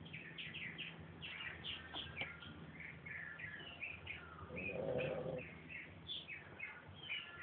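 A Pekingese dog snoring once, a single rough in-breath about two-thirds of the way through. Many small birds chirp quickly and high-pitched all through.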